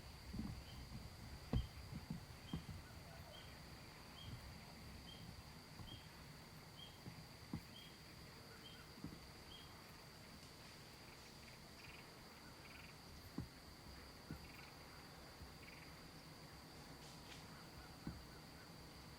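Quiet rural outdoor ambience. A faint steady high-pitched insect drone runs throughout, and a run of about a dozen soft chirps, roughly one a second, fills the first half. A few faint knocks are scattered through.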